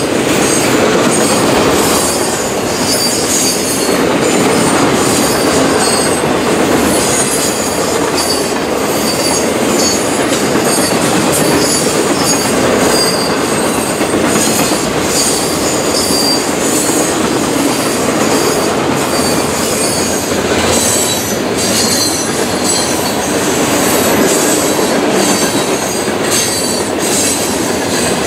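Freight cars (boxcars, then covered hoppers) rolling past at close range: a steady rumble of steel wheels on rail with short, high-pitched wheel squeals coming and going throughout, and occasional sharp clacks from the trucks passing over rail joints.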